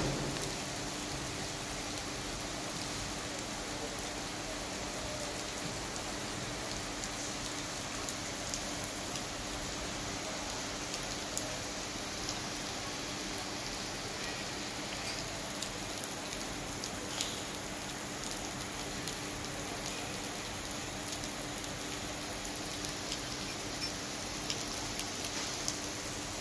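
Steady rain falling on a wet paved road and curb, a constant hiss with scattered sharper ticks of single drops.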